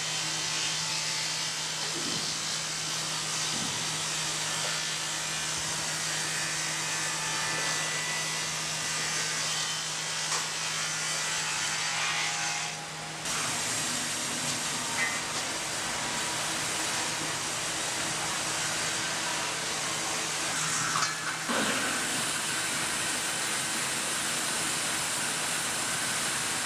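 Woodworking machinery running steadily: a constant hum under an even hiss. The sound changes abruptly about halfway through and again near the end, with a few light knocks.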